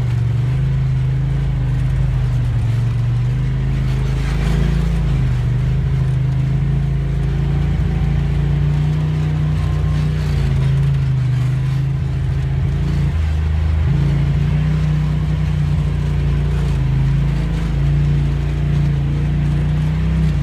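Polaris RZR side-by-side's engine running steadily while driving, with a brief dip in engine pitch about two-thirds of the way through.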